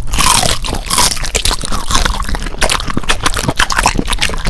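Close-miked eating sounds: a rapid, dense run of crisp crunching and chewing.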